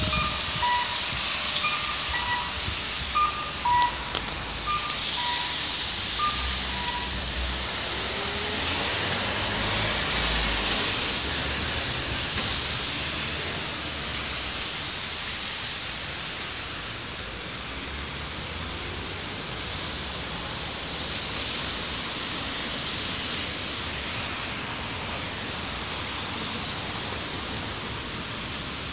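Steady hiss of rain and car tyres on a wet street, with a vehicle rumbling past about five to eleven seconds in. For the first six seconds or so, short electronic beeps repeat about twice a second over it.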